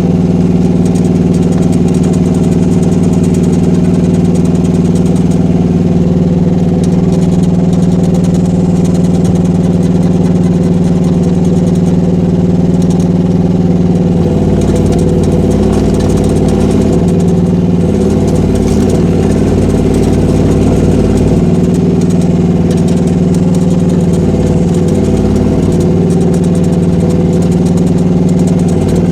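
Gasoline engine of a Rippa R10 mini excavator running steadily while the machine is driven on its tracks. About halfway through, the engine note starts to waver and dip as the load changes, then settles again near the end.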